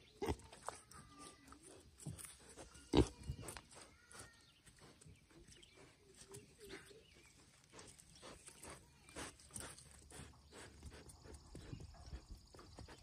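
Piglets grunting briefly and snuffling as they root in wet mud, with many small clicks scattered throughout. The loudest sound comes about three seconds in.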